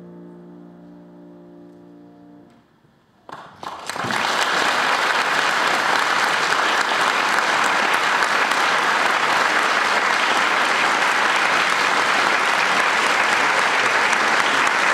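The last sustained note of the music fades away, and a little over three seconds in an audience bursts into steady applause that continues.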